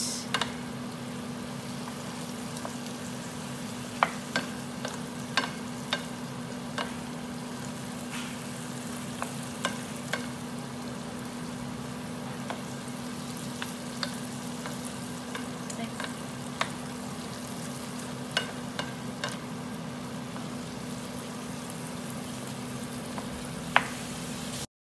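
Chayote strips and chicken sizzling in a nonstick frying pan as a wooden spatula stirs them, with scattered sharp clicks of the spatula against the pan.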